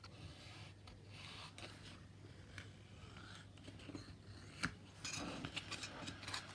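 Faint scratching of a fine hand blade drawn along the centre line of a thin plastic model kit part, in short light passes, scoring it to be cut apart. A sharp click about four and a half seconds in, then a run of quick small ticks and scrapes.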